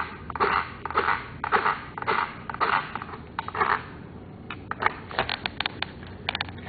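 Hands working on the RC truck's motor and gear assembly: scraping or crunching strokes about two a second, then a run of sharp clicks near the end as the parts are handled.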